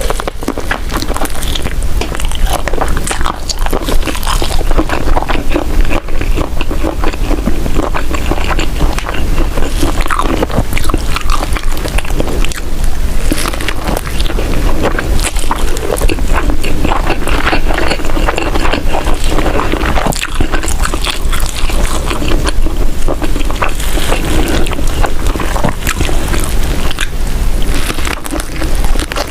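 Close-miked chewing of vegetable vermicelli noodles: a dense, continuous run of wet clicks and crunches, over a steady low hum.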